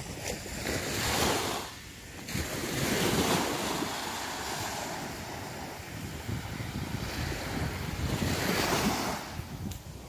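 Small waves washing up and breaking on a sandy shore, swelling louder about a second in, again around three seconds and near the end, with wind buffeting the microphone.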